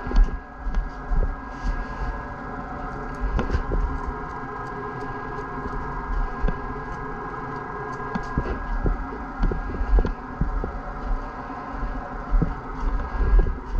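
A steady mechanical hum with irregular low thumps and clicks of handling as resin is worked over a fibreglassed surfboard with a plastic squeegee.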